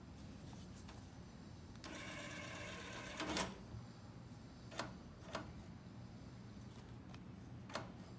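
Toshiba DVD recorder's disc tray motor whirring for about a second and a half as the tray draws in, ending in a sharp clunk as the tray shuts. A few single sharp clicks follow.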